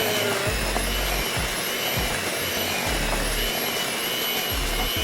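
Electric kitchen mixer running steadily, a continuous motor whir.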